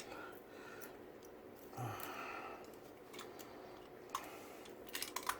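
Quiet handling at an electrical wall box: a short sigh about two seconds in, then a few light clicks near the end.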